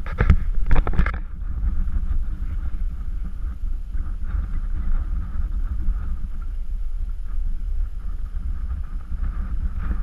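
Wind buffeting the microphone, a steady low rumble, with a few sharp knocks in the first second.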